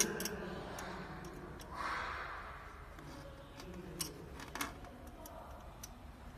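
Scattered light clicks and taps of a hex key against the screws and aluminium frame of a flatbed machine while the screws are loosened, with a short rustle about two seconds in.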